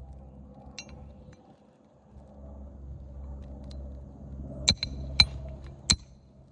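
Three sharp metal-on-metal strikes with a short ringing ping, about half a second apart near the end, typical of a hammer hitting roofing nails, over a steady low rumble.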